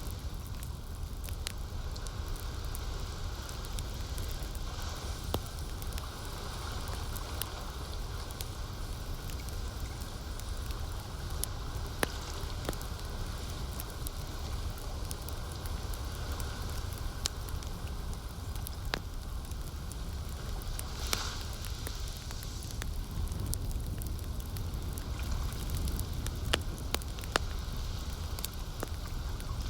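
Campfire burning, wood crackling with irregular sharp pops, over a steady low rumble of lake water lapping.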